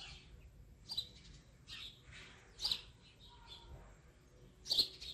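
Small birds chirping: about five short, high chirps roughly a second apart, the loudest near the end.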